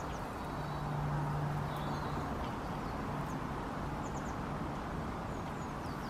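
Garden ambience: a steady background rush with a low hum that fades out about two seconds in, and a few faint, short, high bird chirps.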